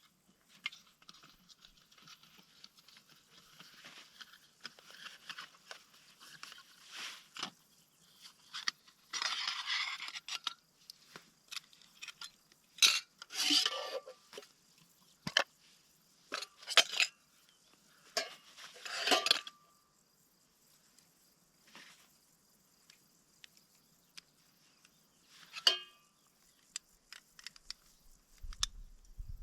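Intermittent rustling, crinkling and light clattering of camping gear being handled, in short bursts of a second or two with quiet gaps between, and a few sharp clicks.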